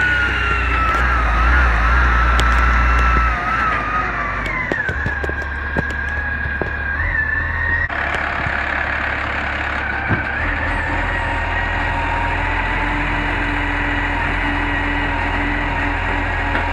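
Dennis Eagle side-loading garbage truck running, its engine rumbling under a whine that falls in pitch as the truck slows to a stop. From about halfway the engine runs on with a steady whine while the hydraulic side arm lifts a wheelie bin to tip it.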